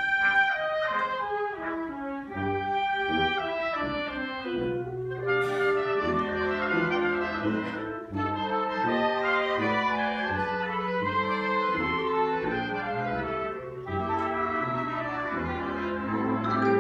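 High school concert band playing: clarinets, flutes and brass in held, changing chords, growing louder at the very end.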